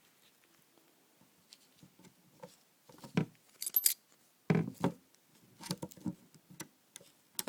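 Metal clicks and clinks of a Leatherman MUT multi-tool being handled as its bits are pushed back into the storage slot in its handle: scattered taps and knocks, with a short high metallic ring about four seconds in.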